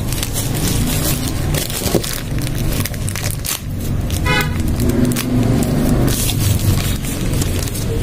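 Clear plastic doll bag crinkling as hands handle and turn it, over a steady low rumble, with one brief pitched tone about four and a half seconds in.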